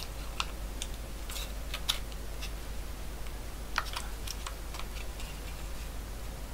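Scattered light clicks and taps of hard plastic and metal parts being handled: a small power-supply controller's case and circuit board turned and fitted by hand, over a faint steady low hum.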